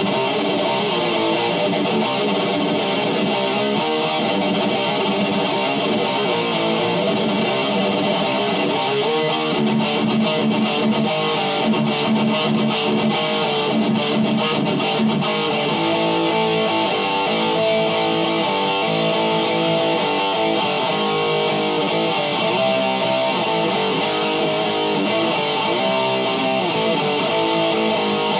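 Distorted electric guitar playing heavy metal riffs, moving to a new riff about 9 seconds in and again about 16 seconds in.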